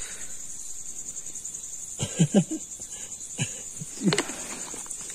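Crickets chirping in a steady, high-pitched pulsing trill, with a couple of short low sounds about two and four seconds in.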